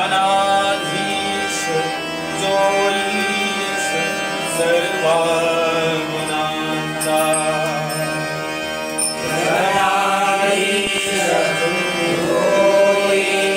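Malvani bhajan: a voice singing a devotional melody over sustained instrumental accompaniment and light percussion.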